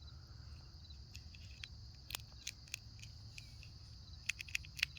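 Faint, scattered light clicks and taps that come quicker near the end, from a chipmunk handling and gathering peanuts. A steady high insect drone runs underneath.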